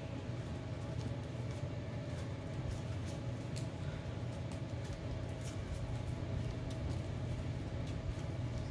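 Sleeved Yu-Gi-Oh cards being hand-shuffled, with scattered faint clicks and flicks of the cards, over a steady low room hum.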